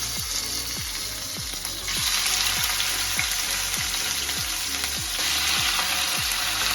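Marinated chicken pieces frying in hot oil and ghee in a kadai: a steady sizzle that grows louder about two seconds in and again about five seconds in.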